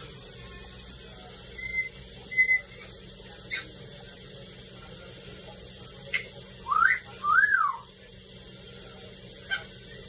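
African grey parrot whistling in short calls: two brief flat whistles about two seconds in, a few quick chirps, and a loudest pair of whistles that rise and fall in pitch around seven seconds in.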